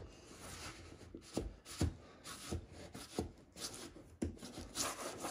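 Rustling and rubbing of a wallpaper mural sheet being peeled back and pressed by hand against a ceiling, with several soft knocks.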